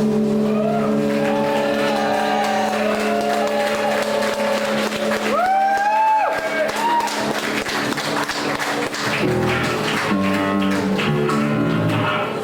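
Live band music: held guitar tones under noisy, dense playing, with a high tone that slides up and down about halfway through.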